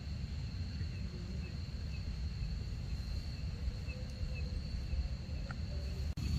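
Steady high-pitched chorus of night insects trilling in the forest, over a low, even rumble.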